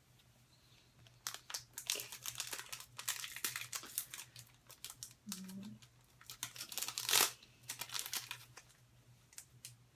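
A trading-card booster pack wrapper being torn open and crinkled by hand, crackling on and off, with the loudest crackle about seven seconds in. A short hum from the person comes a little past the middle.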